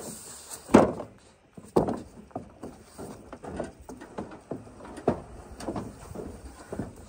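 Dead wild hogs being dropped onto a wooden trailer deck: a series of heavy thuds, the loudest about a second in and another about two seconds in, with smaller knocks of boots and carcasses on the boards after.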